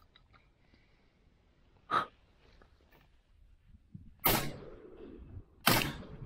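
Two shotgun shots about a second and a half apart, each a loud sudden bang with a rolling echo, fired at passing waterfowl. A shorter, sharper crack comes about two seconds in.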